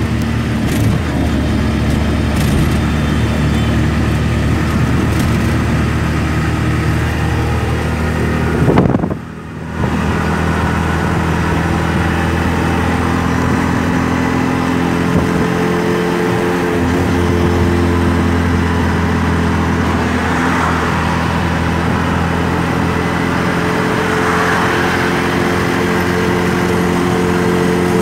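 Auto-rickshaw engine running steadily at high speed with road and wind rush, heard from inside the cabin, with a brief dropout about nine seconds in.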